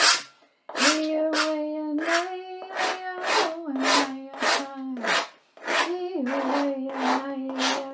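A woman chanting in long held tones that step slowly between a few notes, pausing twice for breath. Over the chant come quick scratching strokes of a carving tool cutting lines into a blackboard, about two a second.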